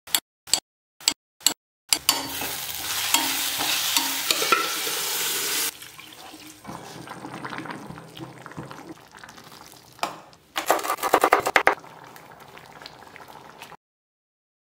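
Onion-tomato masala sizzling and being stirred in a steel pot, in a series of short clips cut together. A quieter simmering stretch follows, then a quick run of scraping strokes a little past the middle, and the sound stops dead near the end.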